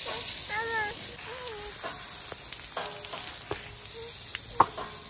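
Water spraying from a garden hose nozzle onto a horse's wet coat, a steady hiss. An animal gives two short wavering calls in the first second and a half, and a sharp click comes near the end.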